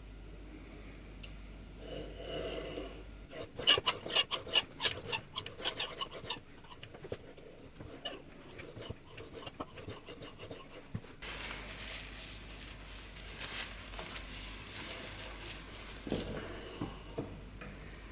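Rode PSA1 boom arm being moved, its joints and springs creaking and rubbing. A quick run of sharp creaks and clicks comes a few seconds in, followed later by a longer stretch of rubbing and scraping.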